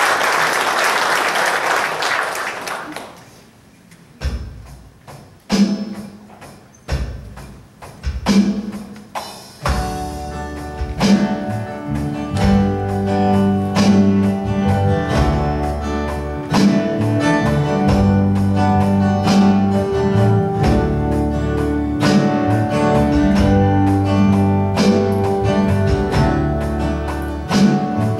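Applause dies away over the first three seconds, then a guitar plays a few separate strums. About ten seconds in, the band comes in with guitar, bass and drums playing a steady song intro.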